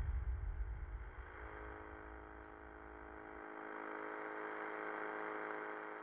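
A deep rumble dying away, overlapped by a droning hum of many steady held tones that swells, peaks about five seconds in, and begins to fade near the end: an electronic drone closing a film soundtrack.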